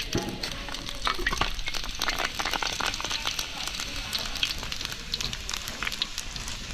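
Hot oil sizzling and crackling in a large iron wok as spices are dropped into it, with a dense patter of sharp little pops throughout.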